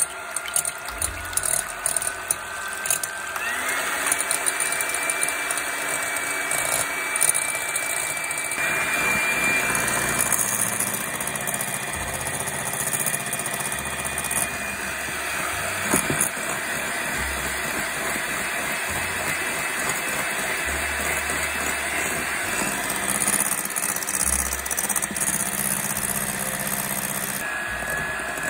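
Electric hand mixer running, its wire beaters whipping egg whites and sugar into meringue in a glass bowl. The motor's whine rises in pitch about three seconds in as it speeds up and drops back a little past the middle, with the beaters ticking against the bowl now and then.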